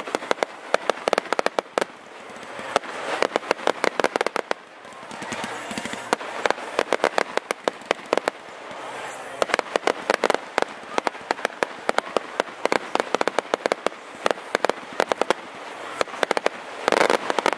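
Fireworks going off: a dense run of sharp cracks and pops, many a second, with a louder cluster near the end.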